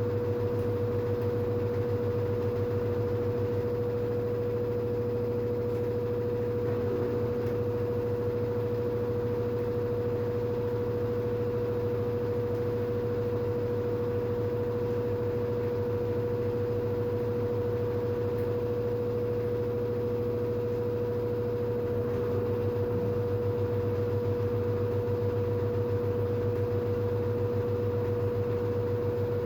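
LG FH4A8TDN2 front-loading washing machine on its spin cycle, its drum spinning at a steady speed: a steady whine over a low hum and a hiss of rushing air, with no rise or fall.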